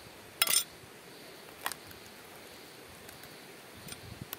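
Objects being handled: a short, loud clatter about half a second in, then a single sharp knock, and a few light ticks near the end, over a faint steady hiss.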